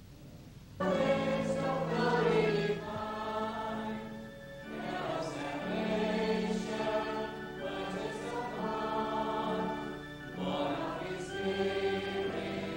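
A choir of many voices singing a hymn in long held phrases, beginning about a second in, with brief breaths between phrases.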